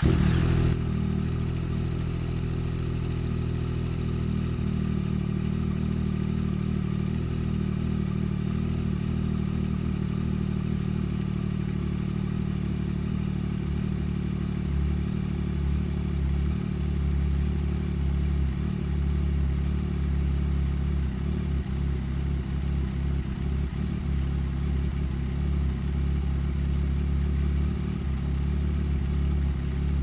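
2023 Yamaha MT-09's inline three-cylinder engine, breathing through a de-catted Two Brothers full exhaust, idling steadily on a cold start after a brief flare as it catches.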